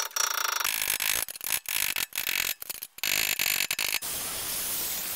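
Handheld power tool spinning a wire brush against a rusty wheel hub, scouring off the rust that had seized the brake disc to it. It starts and stops repeatedly through the first few seconds, then runs steadily near the end.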